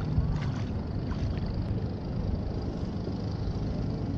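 Wind buffeting the microphone as a steady low rumble, with faint sloshing of water around a person's legs as they wade into a river.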